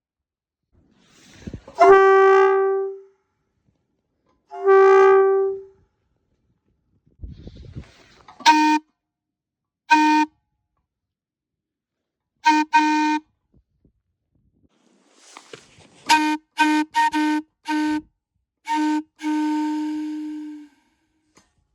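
Locomotive air horns blown on compressed air from a portable tank. One horn gives two blasts, each starting with a slight rise in pitch. A lower-pitched horn follows with short blasts, then a quick run of short toots ending in one longer blast.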